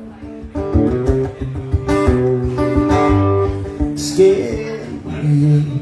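Live guitar music, chords played steadily between sung lines, with the singer's voice coming back in near the end.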